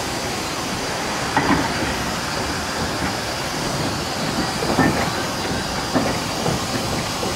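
Achenseebahn steam rack tank locomotive No. 2 moving slowly, with a steady hiss of steam escaping around its cylinders. A few short clanks and squeaks come from its running gear and wheels.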